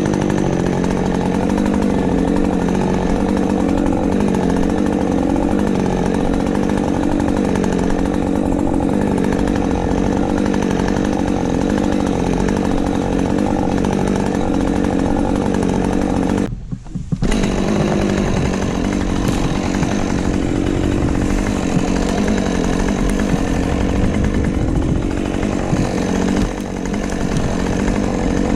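Husqvarna 550XP Mark II two-stroke chainsaw running at high revs, its pitch wavering up and down as it works through spruce wood. The sound breaks off for under a second just past halfway, then carries on.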